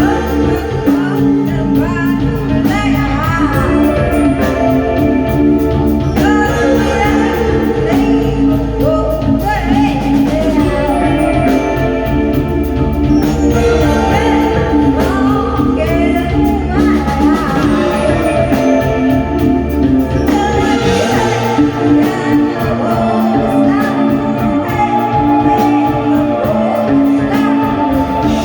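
Live band music: a singer's gliding voice over guitar, bass and drums, playing continuously.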